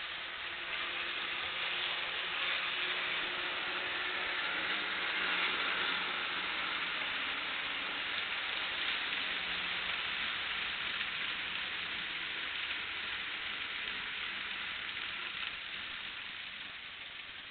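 Model coal train rolling on the layout's track: a steady rushing hiss of metal wheels on rails with a faint hum underneath, growing louder about a second in and fading toward the end as the train runs away.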